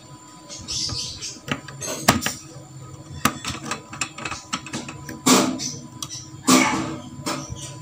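Small screwdriver turning a screw in a plastic screw terminal block on a variable frequency drive, fastening a wire: scattered light clicks and scrapes, with two louder rasping noises about five and six and a half seconds in.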